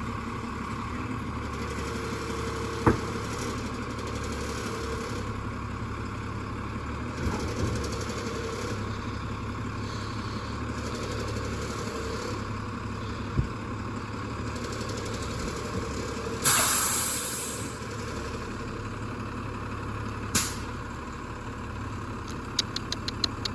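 Garbage truck engine running steadily while it collects bins, with a few knocks. About two-thirds of the way in comes a loud hiss of about a second, typical of an air brake, then a shorter one a few seconds later.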